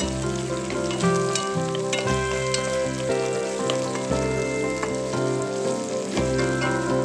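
Red onion and ginger sizzling in hot oil as they are stirred in a pot, with faint crackles. Background music with a bass line that changes note about every second plays over it.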